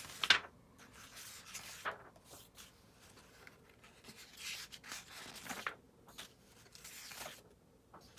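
Pages of a book being turned one after another: several short papery swishes, the first the loudest.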